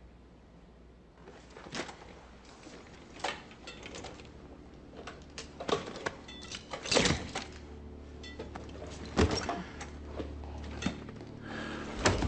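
Scattered clicks, knocks and thuds of a man in a wheelchair shifting and bracing against a table to push himself up, growing busier toward the end, with the loudest knocks about seven, nine and twelve seconds in. A low, sustained film score comes in underneath about seven seconds in.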